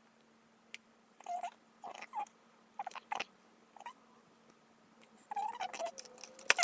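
Play-Doh being pressed and worked into a plastic toy mold: short, irregular squishing and plastic handling noises, growing busier near the end and ending in a sharp click. A faint steady hum runs underneath.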